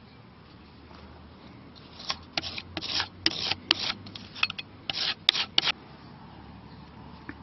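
Putty knife blade scraping across a weathered wooden windowsill, working thinned glazing putty into the weather checks. It makes about a dozen short scraping strokes in quick succession, starting about two seconds in and stopping near six seconds.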